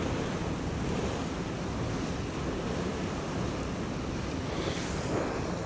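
Steady rushing of flowing water, an even hiss and rumble, with some wind buffeting the microphone.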